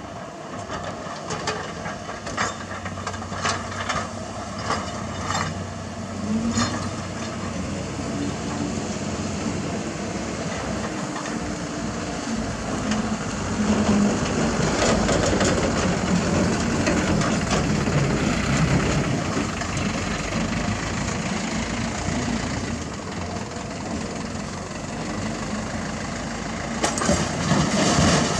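Heavy diesel engines of a Komatsu PC200 hydraulic excavator and dump trucks running steadily. Sharp knocks and clatter of broken asphalt come in the first few seconds. From about halfway the engine sound grows louder and busier for several seconds, and a short burst of clatter comes near the end.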